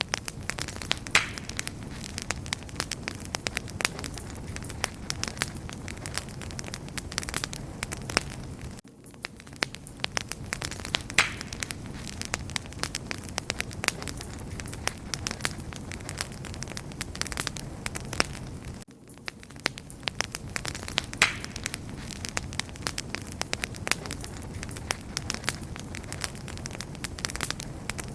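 Wood fire crackling and popping steadily, dense sharp snaps over a low rumble of burning. The same stretch of crackle repeats about every ten seconds, with a brief dip in level at each repeat: a short recording looped.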